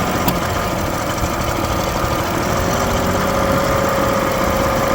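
Honda BF25 25 hp four-stroke outboard engine running steadily at idle just after its carburettor rebuild, with the idle and carbs not yet tuned. A brief click sounds a fraction of a second in.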